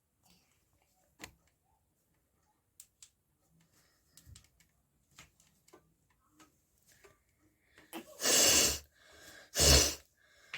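Faint scattered clicks and taps, then two loud, forceful blasts of air through a person's nose, nearly a second apart near the end.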